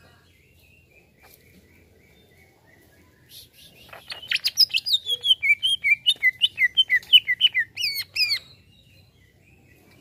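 Greater green leafbird (cucak ijo) singing: a fast run of sharp chirping, whistled notes, about six a second, that begins about four seconds in and breaks off after about four seconds.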